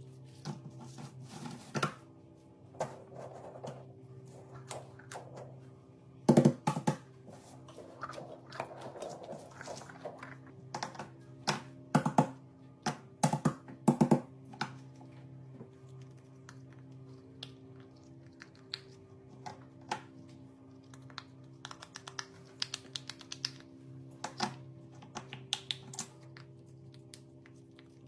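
Steady background music, over which fidget toys being handled and set down on a board make scattered sharp clicks and taps. The taps come loudest in a few quick clusters near the middle.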